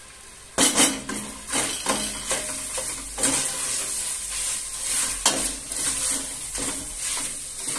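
A wooden spoon stirring diced meat and tomato paste in a stainless-steel pot, scraping against the pot, with the oil sizzling as the paste fries. The stirring starts about half a second in.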